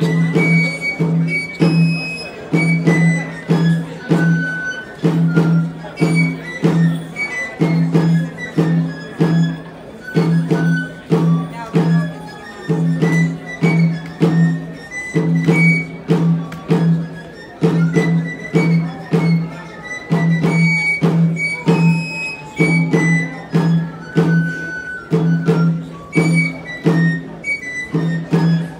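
Basque folk tune played live on a txistu (three-holed pipe), a high stepping melody, over a steady beat on a danbolin (small side drum) about twice a second.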